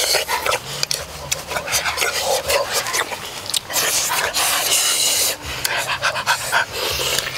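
Crackling and rustling of hands peeling boiled duck eggs, then mouth noises as the eggs are bitten and eaten.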